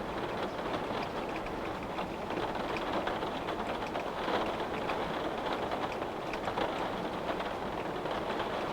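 Steady rain falling, with many small drops ticking against a window-pane over a continuous hiss of rainfall.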